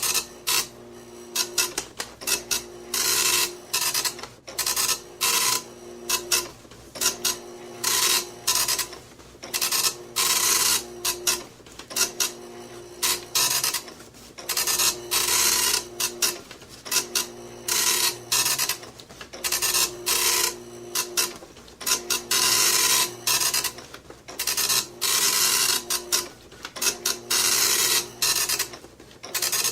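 Computer printer printing: repeated print passes, each a steady motor whir under a run of short rasping bursts, with a new pass every two to three seconds.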